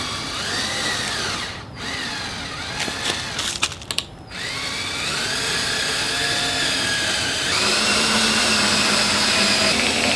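Yellow cordless drill driving a screw into a wooden table frame: the motor speeds up and slows down in short pulls of the trigger, stops briefly with a few knocks, then runs more steadily and steps up to a higher speed near the end.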